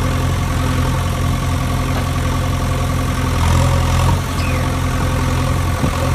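A heavy engine idling steadily, an excavator engine sound accompanying a toy tracked excavator. A few faint clicks and a brief squeak sit on top of it.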